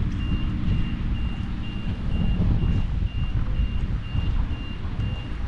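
Electronic warning beeps: one high tone repeating evenly about twice a second, then stopping near the end, over a loud low rumble.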